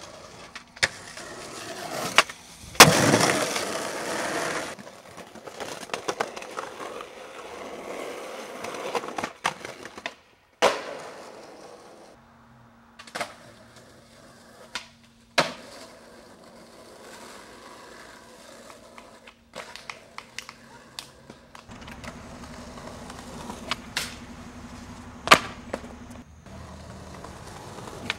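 Skateboard wheels rolling on concrete, broken by sharp pops, clacks and landing impacts of tricks across several short clips. The loudest is a hard impact about three seconds in, followed by a couple of seconds of scraping.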